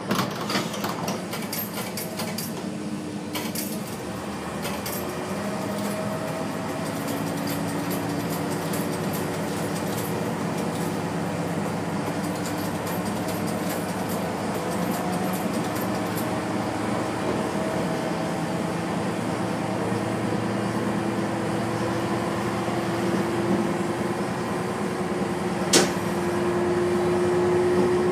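Diesel railcar pulling away and gathering speed: its engine drone rises slowly in pitch over the running noise of the wheels. There are a few clicks near the start and one sharp click near the end.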